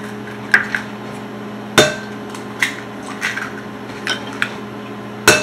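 Eggs being cracked against the rim of a glass mixing bowl: a series of sharp knocks and clinks, the loudest about two seconds in and just before the end, over a steady low hum.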